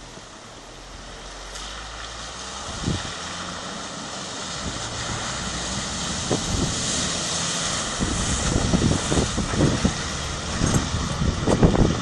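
Mitsubishi L200 pickup driving through shallow water, its engine growing louder as it approaches, with water spraying around the wheels at its loudest about halfway through. From about two-thirds of the way in, rough uneven noise gets louder toward the end.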